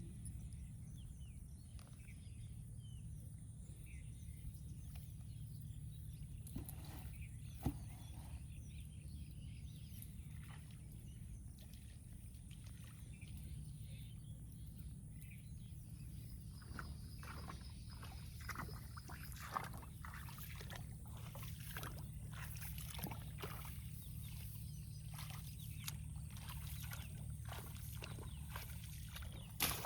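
Water sloshing and splashing in short, scattered spurts with occasional knocks, growing busier in the second half, over a steady low rumble.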